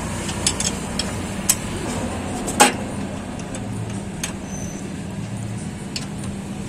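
Scattered small metal clicks and taps of a spanner and terminal nut as the heater (glow plug) wire is fastened on a diesel engine's cylinder head, the sharpest about two and a half seconds in, over a steady low hum.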